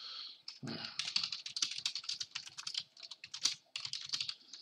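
Fast typing on a computer keyboard: a quick, uneven run of key clicks.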